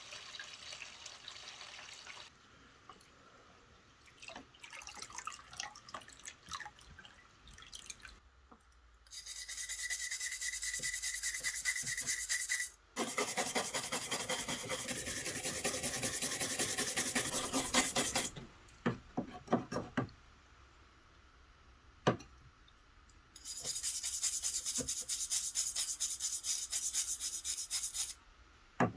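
Abrasive scrubbing in three long bouts of fast, rasping strokes, with small knocks and handling clinks between them. This is rust and grime being scrubbed off the parts of an old Stanley hand plane.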